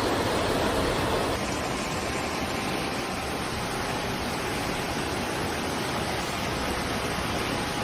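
Steady rushing water, an even dense roar with no breaks, dipping slightly in level about a second and a half in.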